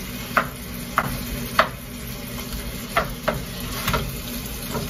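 Wooden spatula stirring and breaking up ground beef in a frying pan, with about six sharp taps of the spatula against the pan over a low, steady sizzle of the meat in sausage grease.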